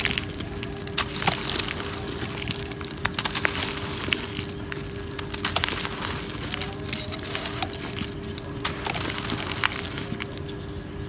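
Dry, gritty cement chunks crumbled and crushed between the fingers: continuous gritty crunching with many sharp, irregular crackles as pieces break off and grit pours down.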